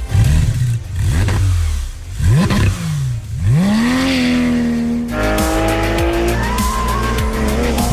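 Porsche 911 GT3 RS naturally aspirated flat-six engine revving: several quick blips rising and falling, then it climbs to high revs and holds, its pitch stepping up again past the middle.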